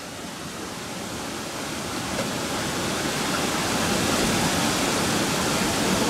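Waterfall pouring into a pool: a steady rush of falling water that grows louder over the first few seconds.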